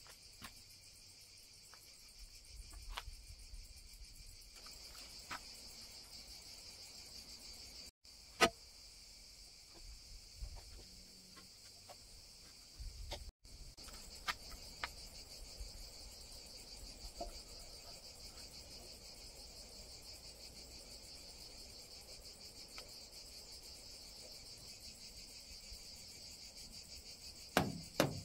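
Cicadas singing steadily in a high, even chorus. Sharp clicks and knocks from hands working the metal pipe fittings under a solar water heater tank come through now and then, with the loudest click about eight seconds in and a short clatter of knocks near the end.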